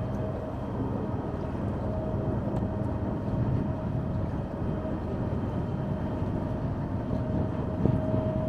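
Passenger ferry under way: a steady low engine drone mixed with rushing water, with a thin steady whine that is faint in the middle and stronger again near the end.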